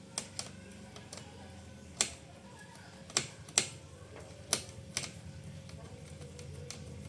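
Irregular sharp clicks and taps, about nine of them, from the plastic and metal parts of a copier's transfer belt unit being handled during disassembly.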